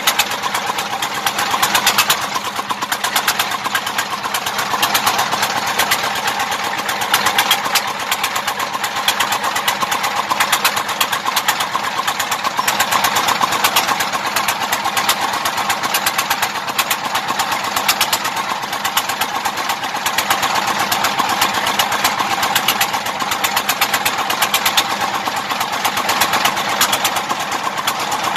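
Small engine of a portable water pump running steadily at a fast, even beat, pumping water out of a swamped boat's hull through a hose.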